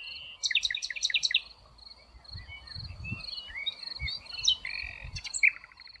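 Common nightingale singing: a held whistled note, then a fast run of loud, sharp repeated notes, followed by softer varied chirps and a brief rapid buzzy trill near the end. A steady high insect trill runs behind it.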